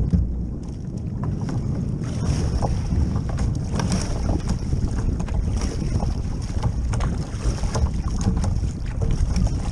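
Wind buffeting the microphone in a steady low rumble, with water splashing as a plastic sit-on-top kayak is paddled through choppy sea.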